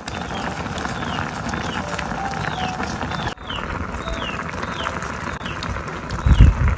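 Pot of water at a rolling boil over a wood fire, bubbling steadily. A bird repeats a short, high, falling call about twice a second, and a low thump comes near the end.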